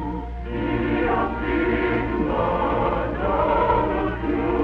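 A choir singing with sustained notes.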